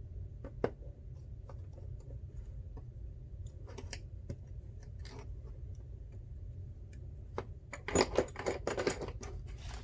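Scattered small clicks and taps of precision repair tools and tiny screws on an iPhone's internal parts, turning into a quick run of clicks near the end, over a steady low hum.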